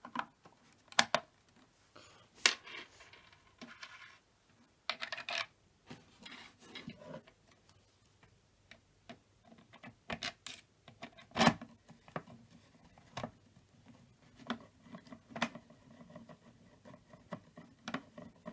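Irregular clicks, taps and knocks of a green emergency door alarm unit being handled and put back together, with a few louder knocks and short scraping rattles about three and five seconds in.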